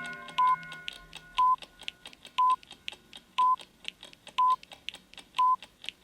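Countdown timer sound effect: a short electronic beep once a second, six in all, with quick clock-like ticks between the beeps. A chord-like chime is already sounding as it opens and fades away over the first couple of seconds.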